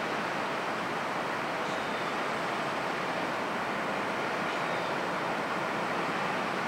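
Steady outdoor rumble of slow-moving passenger rail cars and surrounding traffic, with two faint short high squeals.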